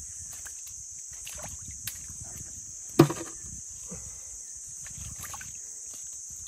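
Sloshing and splashing in shallow pond water, with one sharp thump about three seconds in, over a steady high-pitched chorus of crickets.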